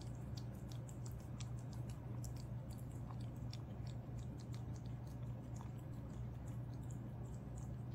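Cat eating wet minced venison from a bowl: a quick, irregular run of small wet clicks and smacks of chewing, over a steady low hum.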